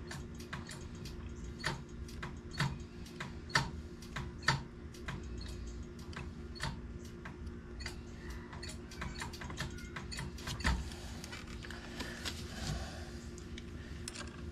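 Light sharp clicks and taps from hands and small tools working at a scooter's front brake caliper, about one a second at first, then quicker and fainter, over a steady low hum.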